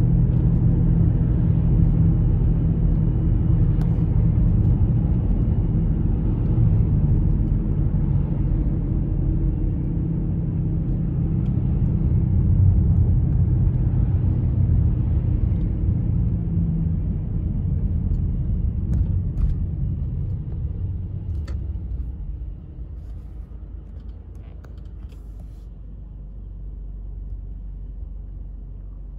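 Low, steady rumble of engine and tyre noise heard inside a moving car; it gets quieter about three-quarters of the way through as the car slows for a red light.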